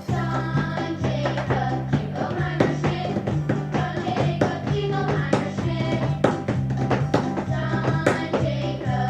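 Recorded children's sing-along music playing, with a bouncing bass line and a steady drum beat.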